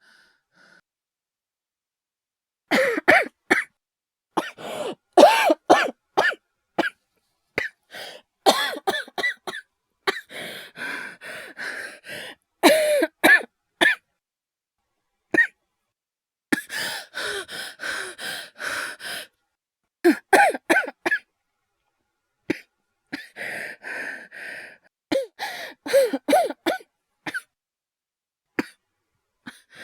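A voice actor's acted coughing: repeated fits of coughs in quick clusters, starting about three seconds in, broken by stretches of heavy breathing.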